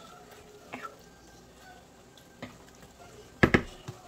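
Wooden spoon stirring soup in a metal pot, with a few light taps and then a sharp double knock of the spoon against the pot about three and a half seconds in.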